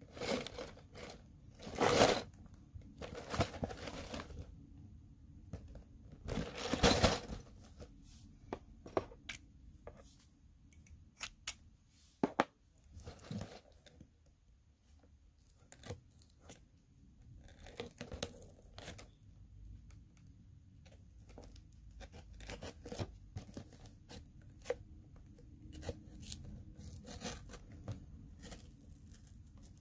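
A Lego set's packaging being torn open and handled. Two loud tearing sounds come about two and seven seconds in, then scattered clicks and lighter rustling.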